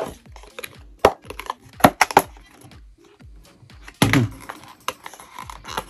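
Handling of the Galaxy Buds 2 cardboard box while working paperwork out of it: scattered sharp taps and knocks about a second and two seconds in, and a louder short sound about four seconds in.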